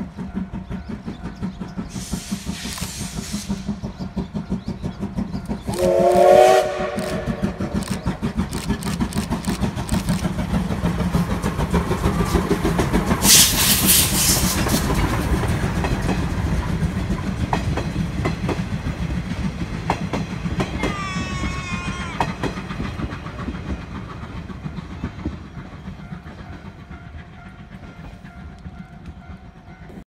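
Double-headed steam locomotives, tank engines C11 325 and C12 66, working past with rapid chuffing exhaust beats and a steam whistle about six seconds in. A loud hiss of steam comes around the middle as the engines pass. The 50-series coaches then roll by with wheel clatter and a brief high squeal, fading away near the end.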